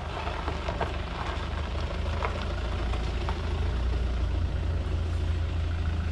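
A vehicle engine idling with a steady low hum, and a few short high chirps over it in the first half.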